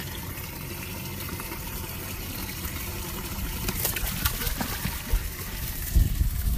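Water splashing and churning in a boat's livewell as a hand reaches in and lifts out a bass, with a few heavy low thumps near the end.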